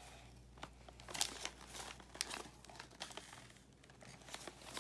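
Glossy gift-wrap paper crinkling and rustling as a toddler pulls at it, with a faint scatter of irregular crackles.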